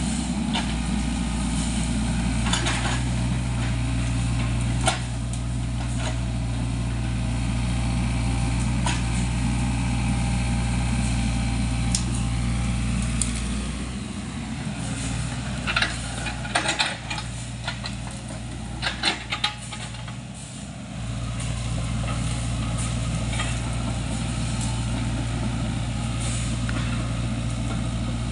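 Sany mini excavator's diesel engine running steadily. In the middle the engine note drops for several seconds while a run of sharp metallic clanks and knocks sounds as the machine moves over the mud.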